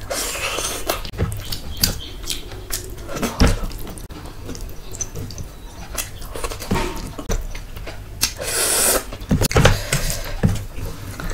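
Close-miked eating sounds of a person eating curry and rice by hand: wet chewing, lip smacks and sucking or slurping noises, with many short clicks. There are two longer hissing slurps, one at the start and one about eight and a half seconds in.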